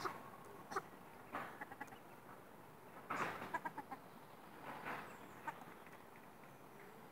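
Ruddy shelducks calling in several short bursts. The loudest comes about three seconds in and is followed by a quick run of short notes.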